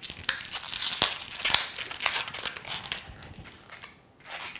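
Latex twisting balloon (a small gray 160) being handled and tied off: irregular rubbing, crinkling and clicking of the rubber in the hands, dying down near the end.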